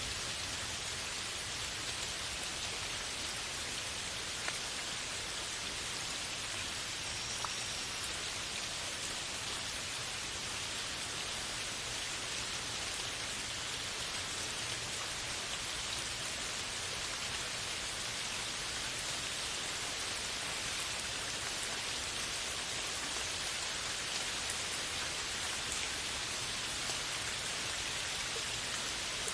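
Steady heavy rain falling on forest foliage: an even hiss of countless drops, with a few single drops ticking now and then.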